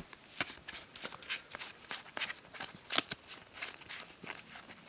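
A newly unwrapped deck of game cards being handled and flipped through, giving an irregular run of light clicks and snaps, several a second.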